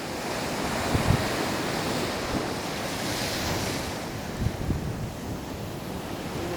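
Sea waves washing in steadily, with wind buffeting the microphone in gusts about a second in and again around four and a half seconds in.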